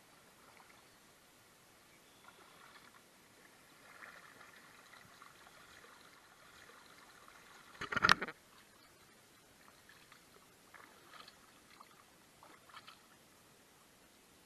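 Kayak paddling on a river: soft, uneven splashes and drips of the paddle blades dipping into the water, faint against the low wash of the river, with one sharp knock about eight seconds in.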